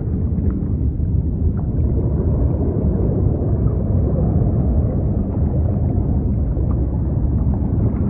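Underwater sea ambience: a steady, deep wash of rumbling noise, with faint brief clicks here and there.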